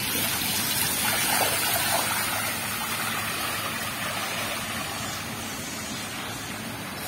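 Rain falling steadily, with water running.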